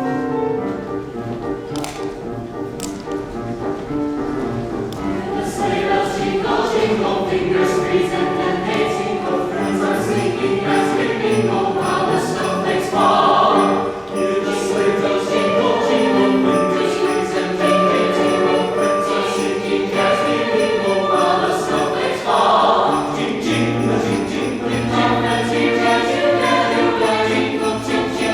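Mixed chamber choir singing a Christmas choral piece in sustained chords, accompanied by jingling sleigh bells, with two short, louder shakes of the bells about halfway through and again later.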